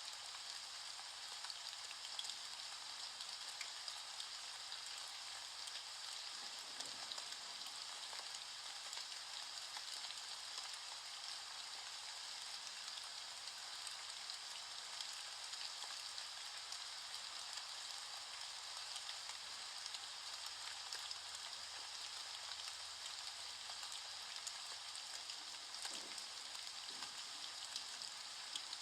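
Steady rain falling: an even hiss full of fine drop ticks, unchanging throughout.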